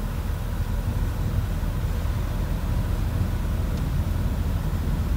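Train running along the track, heard from inside the driver's cab: a steady low rumble with a faint, even hum above it.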